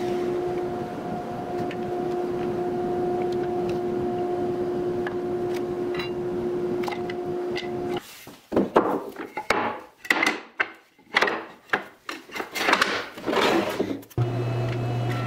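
Table saw running with a steady hum as an ipe hardwood board is fed past the blade. After about eight seconds come irregular loud wooden knocks and scrapes as rough boards are handled. Near the end a steady low hum starts abruptly: the thickness planer's motor.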